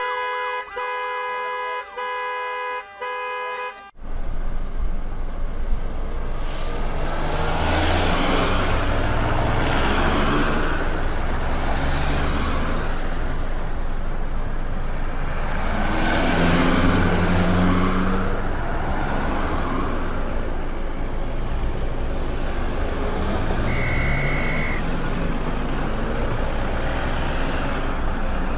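Car horns honking in long held blasts with brief breaks for the first few seconds, then busy road traffic: a steady wash of engines and tyres with vehicles swelling past and engines revving up as they pull away. A single short, high beep sounds late on.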